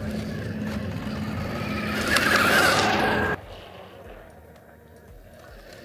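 Honda CRF-E2 electric mini bike riding on dirt, its electric motor whining. The sound grows louder to a peak between two and three seconds in, then cuts off suddenly about three and a half seconds in, leaving a quieter stretch.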